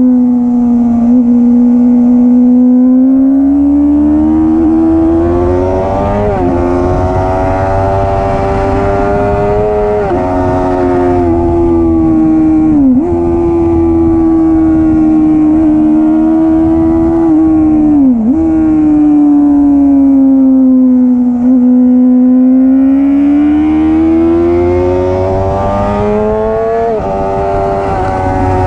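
Suzuki GSX-R600's inline-four engine, heard from onboard, running hard at high revs. The pitch climbs through each gear and drops sharply at each of five upshifts. Midway the revs fall away through a corner and then build again.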